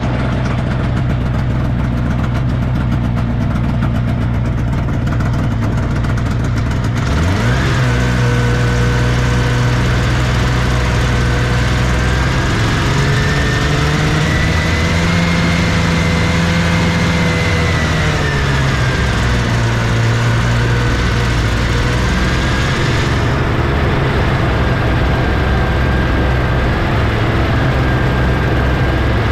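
1979 Scorpion Whip snowmobile's Cuyuna 440 two-stroke engine running at a steady idle, then revving up sharply about seven seconds in as the sled pulls away. Its pitch then rises and falls with speed along the trail.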